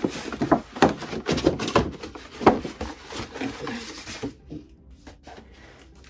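Toy packaging box being opened by hand: a quick run of scrapes, taps and rustles of the box and its flaps that thins out after about four seconds.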